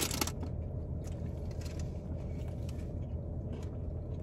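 Steady low hum inside a car cabin, with faint clicks and rustles from people eating; a dense crackle stops about a third of a second in.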